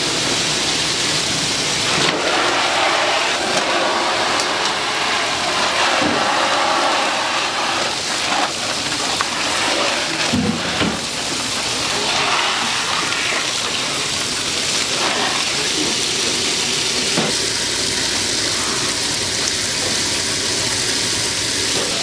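A steady rushing hiss, like water or steam, with a few knocks and clatters from kitchen work.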